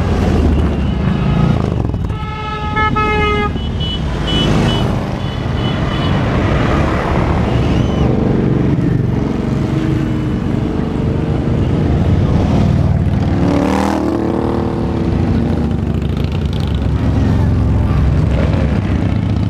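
Large cruiser and touring motorcycles running past one after another, with a steady engine rumble throughout. A horn sounds for about a second and a half, about 2 s in, falling slightly in pitch. One engine revs briefly about two-thirds of the way through.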